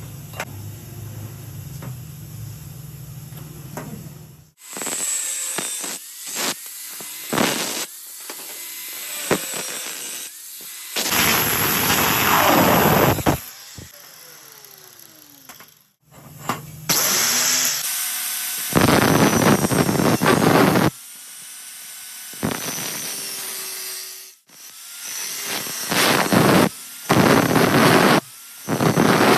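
Angle grinder cutting steel tube in repeated bursts of a few seconds, its pitch sliding down as the disc winds down between cuts.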